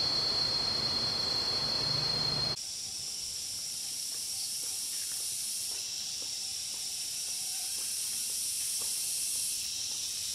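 A louder, even rushing noise with a steady high whine cuts off suddenly about two and a half seconds in. A steady, high-pitched hiss of insects in a tropical forest follows, with a few faint ticks.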